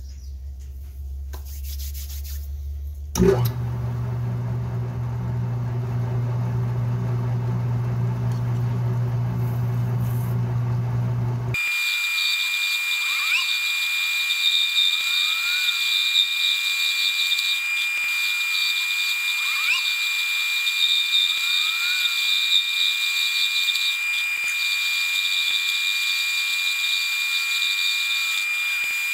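Atlas metal lathe running, a steady low motor hum that steps up after a sharp click about three seconds in. After about twelve seconds the sound switches abruptly to a steady high-pitched whine with a few short rising chirps, as a boring bar cuts inside the spinning steel workpiece.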